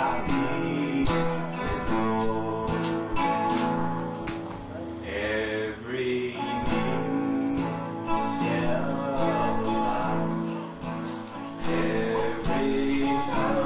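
Acoustic guitar strummed in steady chords, with a voice singing along in several phrases.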